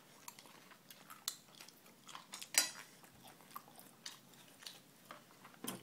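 Small clicks and taps of a young child eating at the table, chewing and knocking utensils or dishes, with one louder click about two and a half seconds in.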